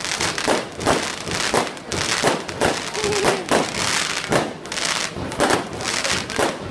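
Aerial fireworks bursting overhead in a rapid, uneven string of sharp bangs, about two or three a second.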